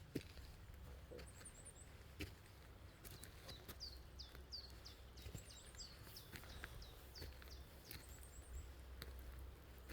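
Faint woodland birdsong: a run of short, downward-sliding whistled notes, two or three a second, through the middle, with brief clusters of very high thin chirps three times. Scattered light clicks and a low rumble lie underneath.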